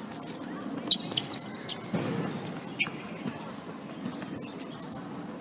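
Sports shoes squeaking on an indoor court floor several times during play, with a single sharp knock about three seconds in over a low murmur of voices.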